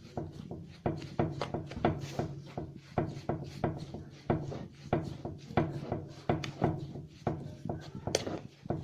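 A spoon mixing a thick basbousa mixture of packet mix, ghee and yogurt in a bowl, knocking against the bowl in quick, irregular strokes, two or three a second.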